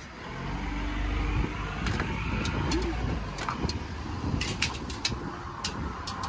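Low rumble and hum of a passing motor vehicle. Several sharp clicks in the second half as a glass door is pushed open.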